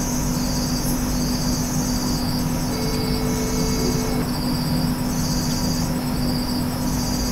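Cricket trilling in repeated bursts of a second or so, over a steady low hum and hiss.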